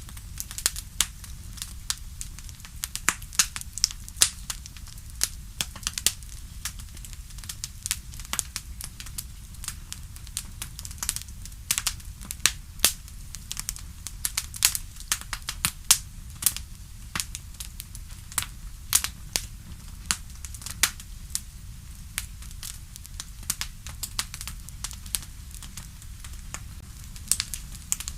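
Bonfire crackling: a steady stream of irregular sharp pops and crackles, several a second, over a low rumble of the burning fire.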